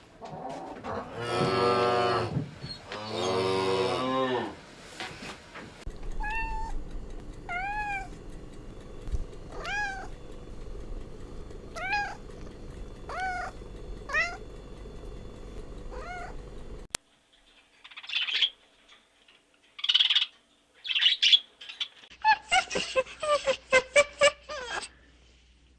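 Three long low moos from cattle, then a cat meowing over and over, about one short meow every second. After a cut come a few short noisy calls and a rapid run of clicking pulses from another animal.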